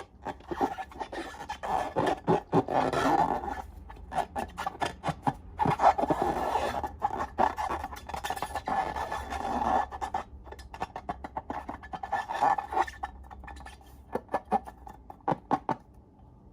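Slime being worked by hand or with a tool: bouts of wet scraping and rubbing with many sharp sticky clicks, pausing briefly between bouts.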